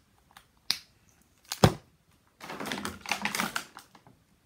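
Small plastic items and packaging being handled: a few sharp clicks, the loudest about a second and a half in, then a second or so of crinkling and rustling of a clear plastic blister pack.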